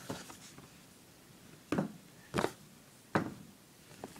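Three short, sharp handling knocks, about two-thirds of a second apart, as hands move small toy figures near the camera.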